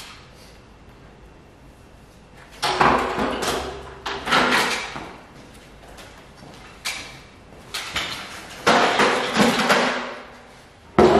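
Clattering and scraping of metal stepladders and a folding step stool being moved and folded on a concrete floor: four rough bursts of about a second each, with a few sharp knocks between them.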